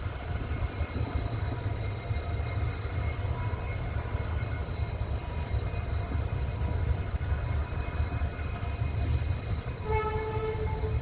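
Moving train heard from inside a coach behind a WDP4B diesel locomotive: a steady low rumble, with a short locomotive horn blast near the end.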